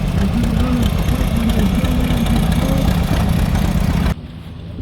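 Antique farm tractor engine idling steadily; the sound cuts off abruptly about four seconds in.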